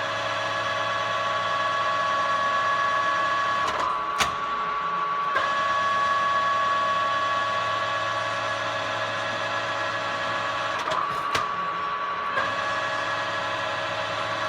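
Okuma Howa STM 2V vertical milling machine running with a steady whine and low hum. A few short clicks break in, where the whine drops out briefly and comes back, about four seconds in, again near five seconds, and two or three times near the end.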